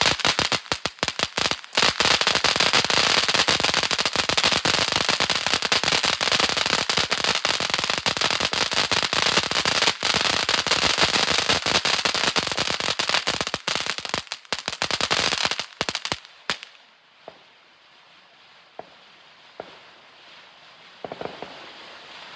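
Ground fountain firework spraying with a loud hiss and dense rapid crackling, which cuts out about three-quarters of the way through as the fountain burns out. A few faint scattered pops follow.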